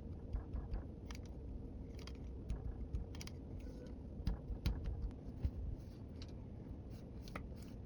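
Light, irregular clicks and taps of small plastic toy pieces being handled and set down.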